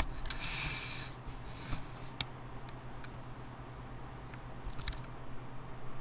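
A few separate clicks of keys being pressed on a Dell Latitude D630 laptop keyboard, with a short rustle in the first second and a steady low hum underneath.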